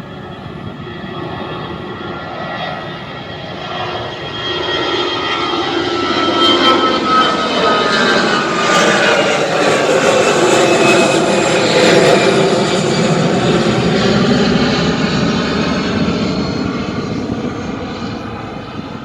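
Airliner engines passing close during takeoff: the engine noise swells to its loudest about two-thirds of the way through, then fades, with whining tones that shift in pitch as the plane goes by.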